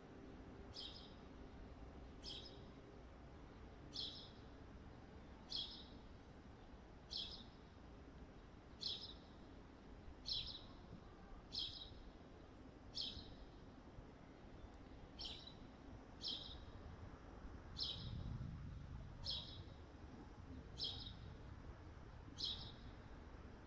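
A small bird chirping over and over, one short high falling chirp about every second and a half, with a little irregularity in the spacing.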